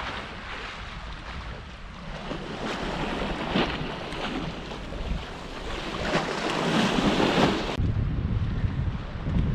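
Sea waves washing and splashing against a concrete pier wall, with wind buffeting the microphone. The water swells up twice, then near the end the sound changes abruptly to mostly low wind rumble.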